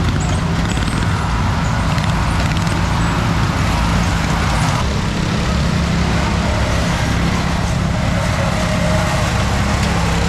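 Riding lawn mower engine running steadily under racing use.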